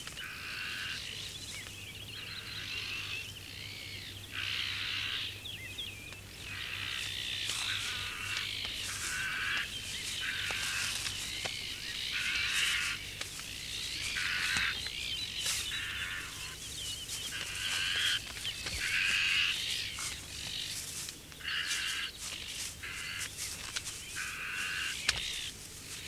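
A flock of azure-winged magpies giving harsh alarm calls over and over, several birds overlapping, as they mob a snake at their nest.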